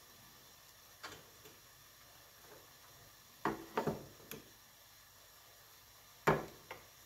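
A metal slotted utensil clicking against a wire rack and metal tray: a few light, scattered clicks, a quick cluster of three near the middle and the sharpest one a little after six seconds in.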